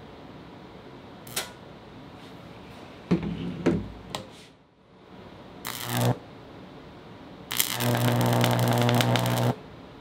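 High-voltage arc from two microwave oven transformers with secondaries in series, about 4000 volts, buzzing with a mains hum and crackle. A single snap about a second in, short arcs about three and about five and a half seconds in, then a loud sustained arc of about two seconds near the end that cuts off suddenly.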